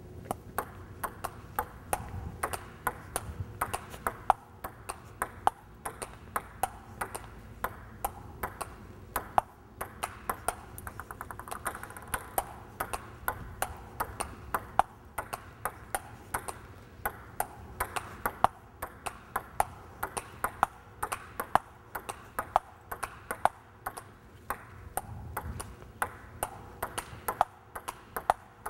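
A table tennis ball knocked back and forth in a steady rally, clicking off the rackets and bouncing on the table in a regular run of sharp ticks, about two to three a second.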